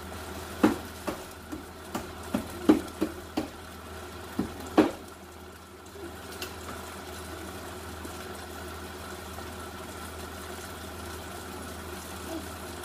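Kitchen utensils and cookware clattering: about ten sharp knocks and clinks over the first five seconds, then only a steady low hum.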